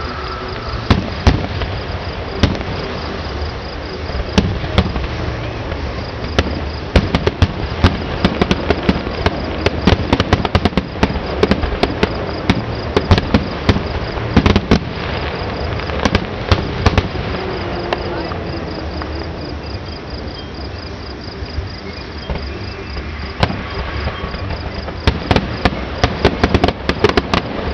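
Fireworks display: many sharp bangs and crackles from aerial shells bursting, coming thick through the middle, easing off for a few seconds past the middle, then thick again near the end. Under them runs the steady chirping of crickets.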